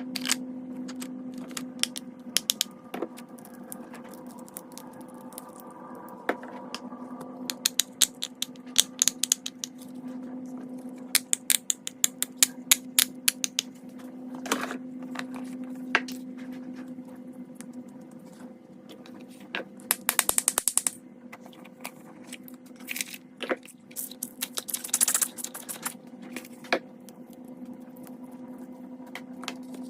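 Fidget toys being clicked and popped: quick runs of sharp clicks and single snaps, in bursts of a second or two with pauses between, over a steady low hum.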